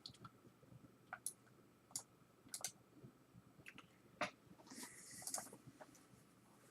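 Faint, irregular clicks of a computer mouse and keyboard, with a short rustle about five seconds in.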